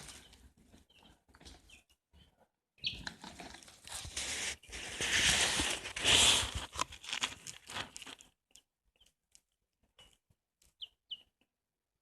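Newly hatched chicks rustling and scuffling for about five seconds, then a few short, high peeps near the end.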